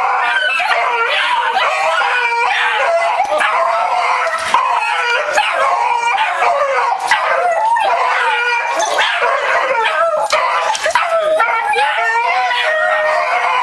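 Dogs whining, howling and yipping without pause in an excited greeting. The calls are high and wavering, broken by short sharp yips.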